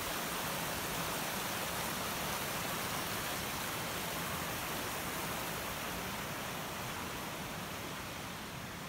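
Fast-flowing creek rushing over rocks in a steady, even roar of water, a little fainter near the end.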